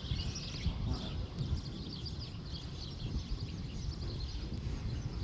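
Many small birds chirping over a steady low wind rumble.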